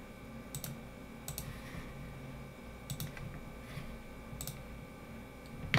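Computer mouse clicking: single sharp clicks about a second apart, the one near the end the loudest, over a faint steady hum.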